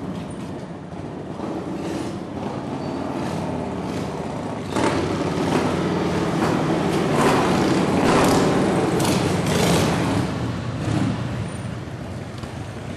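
Several Harley-Davidson V-twin motorcycles running as they ride in at low speed, the engine sound jumping louder about five seconds in, loudest around the middle, then easing off near the end.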